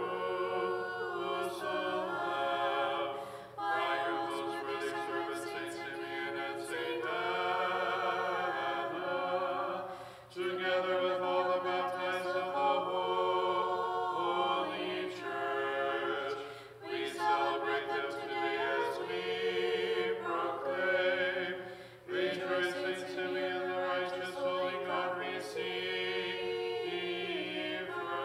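Small choir singing Orthodox liturgical chant a cappella, in held phrases of about six seconds with brief breaths between them.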